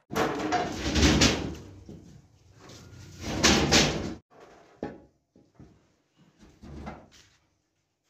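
Loud metallic clattering and scraping, twice in the first four seconds, then a few lighter knocks: heavy cast-iron castings being handled and set down on metal.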